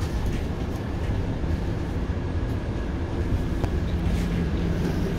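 Inside a Scania GN 16 articulated city bus on the move: steady low engine and road rumble, with a few faint clicks and rattles.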